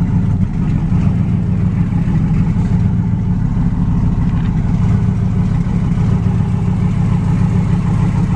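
Pickup truck's engine running steadily through a loud, deep exhaust, with no change in pitch. The engine has new lifters fitted, to cure a lifter tick.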